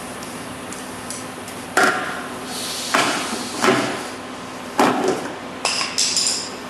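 About six irregular sharp metal strikes on sheet metal, each with a short ringing tail, like hammer blows on a car body panel.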